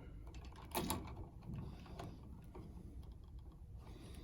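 Faint clicks and light handling noise of electrical wires and a wall switch being moved around in a switch box, with a small cluster of clicks just under a second in.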